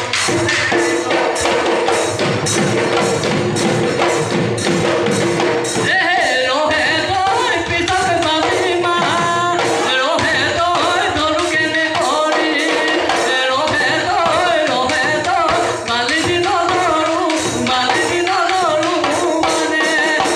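Live Assamese Bihu music: dhol drums beaten in a fast, steady rhythm, with voices singing over them, most clearly from about six seconds in.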